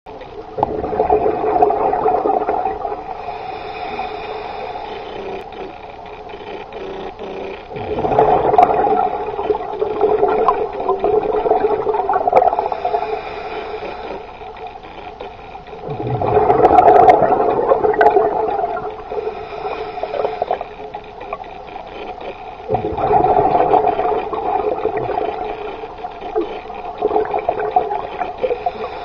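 Scuba diver's breathing through a regulator underwater: four long bursts of exhaled bubbles about seven to eight seconds apart, with a fainter inhalation hiss between them.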